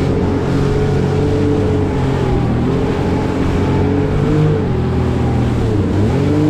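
Jet ski engine running at speed over a steady rush of noise. Its pitch dips about two and a half seconds in and again near the end, each time climbing back as the throttle eases off and opens up again.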